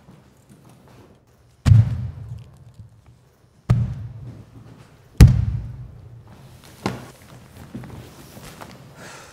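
Heavy footsteps on a hard floor in a large, echoing room: three loud, booming thuds about one and a half to two seconds apart, then a softer knock and faint rustling as she sits down.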